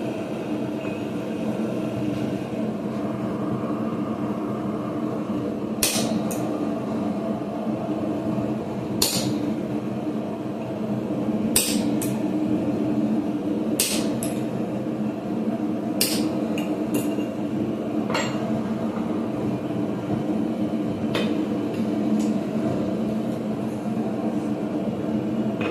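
Hammer blows on a railroad-spike hot chisel driving it into hot mild steel on an anvil: about a dozen sharp, separate metallic strikes at an uneven pace, some ringing briefly. A steady low hum runs under them.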